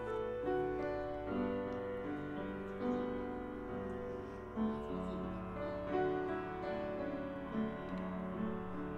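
Keyboard playing a church service prelude: slow held chords, with a new chord every second or so.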